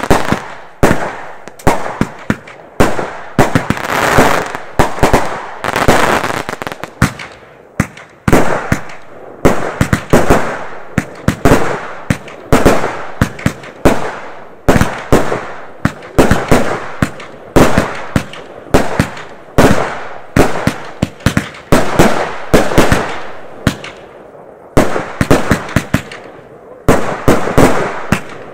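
Consumer aerial fireworks launching and bursting in quick succession: sharp bangs, often several a second, each trailing off in a crackling hiss. The bangs thin out and go quieter for a few seconds shortly before the end, then pick up again.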